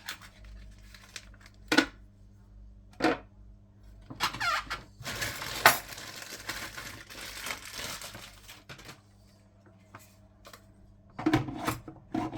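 Hands unpacking equipment: a few sharp knocks and clatters of hard parts being set down, and a longer rustle of packaging from about five to eight seconds in.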